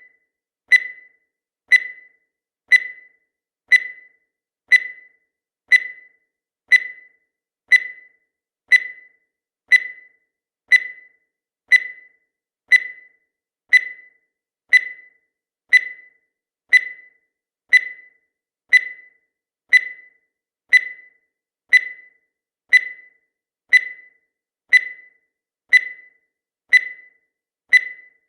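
Countdown timer sound effect: a short, high pip once every second, each one cut short and evenly spaced, marking off the seconds.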